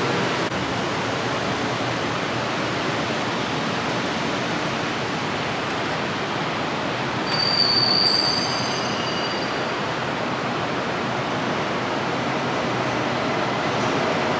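BTS Skytrain electric train running along the station track, a steady rushing noise, with a brief high-pitched squeal of several thin tones about seven seconds in.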